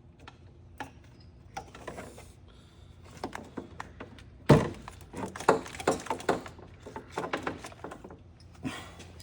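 Scattered clicks, taps and knocks of hands handling parts and wiring on an ATV, with one sharp knock about halfway through followed by a quick run of clicks.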